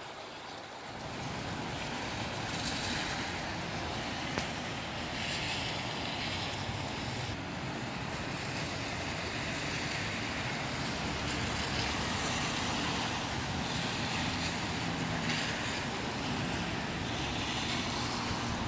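Gusty wind, a steady rushing noise that swells and eases every few seconds.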